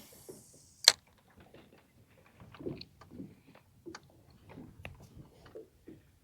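Scattered clicks and light knocks from fishing tackle being handled in a boat, with one sharp click about a second in that is the loudest sound.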